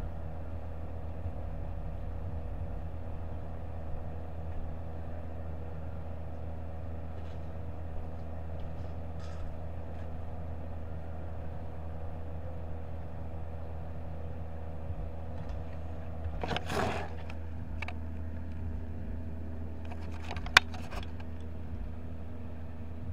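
Steady electrical or fan hum with a few faint clicks, a rustle about three quarters of the way through, then handling noise and one sharp click near the end as the camera is picked up.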